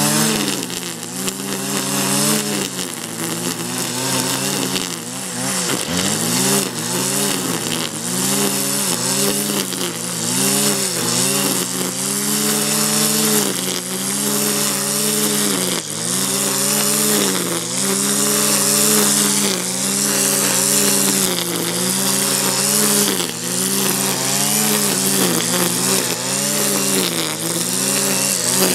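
Husqvarna petrol brushcutter with a Stihl AutoCut 46-2 nylon-line head cutting tall grass. The two-stroke engine runs at high revs, its pitch dipping and recovering every couple of seconds as the spinning line sweeps through the grass, over a steady hiss of line whipping the stems.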